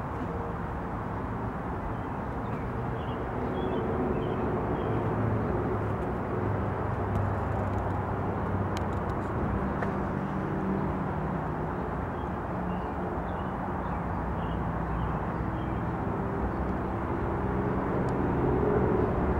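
Steady outdoor rumble of distant engine noise, swelling slightly now and then, with a hum that drifts in pitch and a few faint high chirps.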